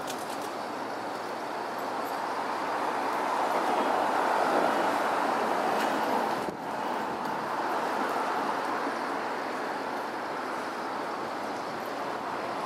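City street ambience: a steady noise of traffic that swells somewhat in the middle, with a brief drop about six and a half seconds in.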